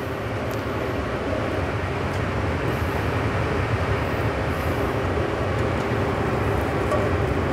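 Butter heating in a stainless steel pan over a lit gas burner: a steady sizzle and rushing noise from the stovetop that builds a little over the first two seconds, then holds.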